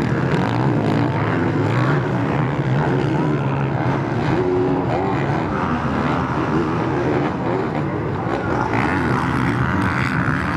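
Motocross race motorcycle engines revving hard, the pitch rising and falling continually with throttle and gear changes.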